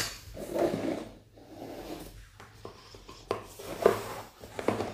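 Cardboard smartphone packaging being handled: hands rubbing and sliding over the boxes, with a sharp tap right at the start and a few light knocks near the end.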